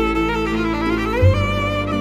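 Background instrumental music: a melody with vibrato over held bass notes, with the bass changing about a second in.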